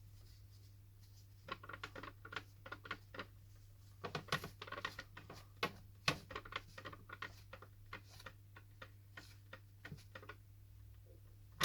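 Irregular small scratches and clicks of a hand tool working against a phone's frame, starting about a second and a half in and going on in uneven bursts, over a faint steady hum.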